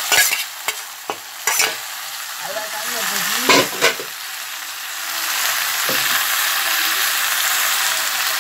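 Fried aubergine, green peppers and tomatoes sizzling in a metal pot, with a few sharp clinks and scrapes of a bowl and utensil against the pot in the first few seconds as the peppers go in. The sizzling grows louder about halfway through.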